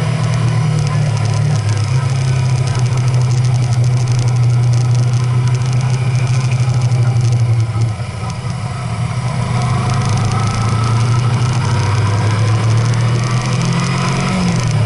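Vehicle engine running steadily while driving, with a brief drop in loudness about eight seconds in and a change in engine note near the end.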